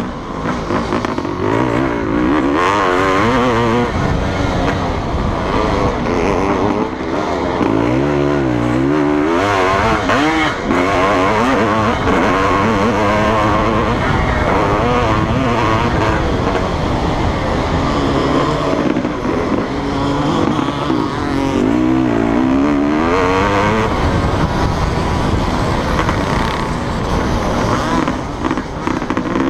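Honda CR500 two-stroke single-cylinder engine ridden hard on a motocross track, its revs climbing and dropping over and over as it accelerates, shifts and rolls off for turns, heard from a camera mounted on the bike.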